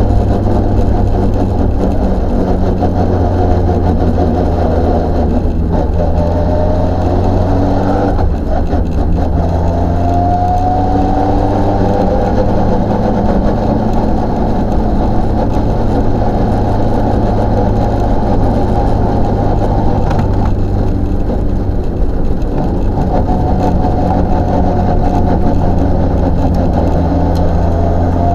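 Volvo 940 rally car's engine running hard at speed, heard from inside the stripped, caged cabin. Its pitch climbs as it accelerates, with brief dips between pulls.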